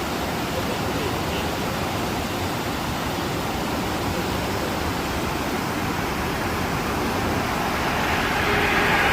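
River water flowing over stones: a steady rushing that grows a little louder near the end.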